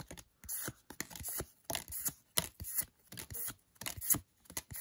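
Pokémon trading cards sliding against each other as a freshly opened booster pack is flipped through card by card: a string of short papery swishes, about two a second.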